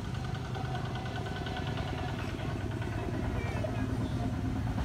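A motor engine running steadily out of sight, a low continuous rumble.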